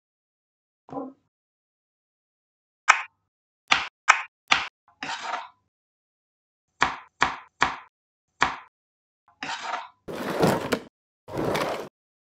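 Dubbed-in cartoon sound effects: a string of about ten short, sharp knocks or whacks, each cut off to dead silence. Near the end come two longer bursts of hissing noise of about a second each.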